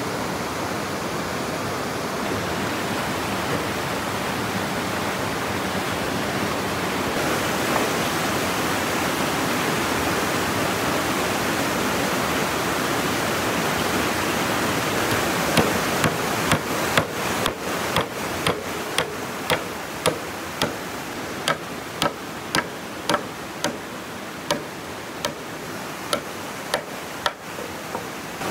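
A steady rushing noise, then from about halfway a run of sharp, regular blows about two a second, a tool striking wood in bridge-building work.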